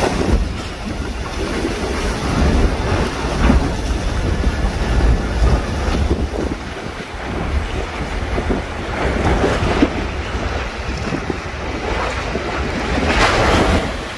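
Strong west wind buffeting the microphone, with the rush and splash of rough, high sea waves around a small fishing boat. The noise swells louder a few times, most of all near the end.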